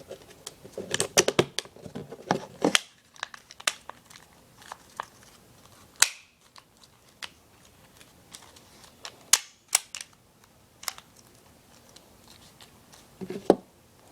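Sharp clicks and snaps of P-23 pistol parts being fitted and pressed together by hand. There is a quick flurry of clicks in the first few seconds, then single loud clicks spaced a few seconds apart.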